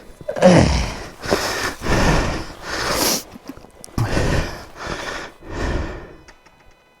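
A person breathing out forcefully through the nose and mouth close to the microphone, about half a dozen loud bursts in quick succession, some dropping in pitch.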